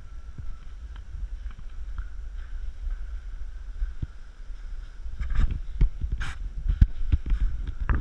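Wind and handling rumble on a body-worn action camera's microphone, with scattered clicks and knocks. The clicks and knocks come more densely from about five to six and a half seconds in.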